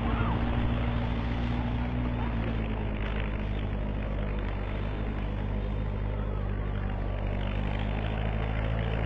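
A tractor engine running steadily in the paddy field, a continuous low drone whose speed eases slightly about two seconds in.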